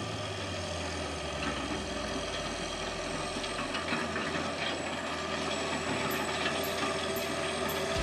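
John Deere tractor running while it pulls a wide wheeled implement over stony ground, with a steady mechanical clatter and rattle. A quick, even ticking joins in near the end.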